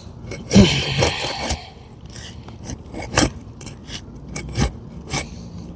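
A hand tool scraping under an asphalt roof shingle, breaking it free of its tar seal strip: one long scrape about half a second in, then scattered light clicks and taps.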